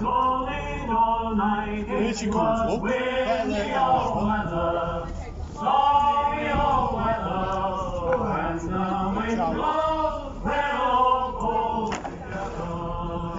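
Men's voices singing together in held, gliding notes, over a low steady rumble.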